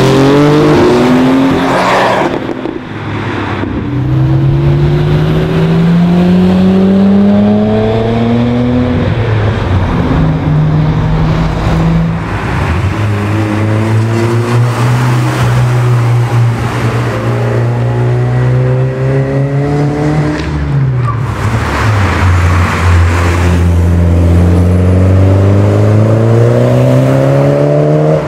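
A series of sports and modified cars driving past one after another, their engines revving up hard so the note climbs in pitch several times, with a steadier low engine note in between. The sound cuts abruptly from one car to the next every few seconds.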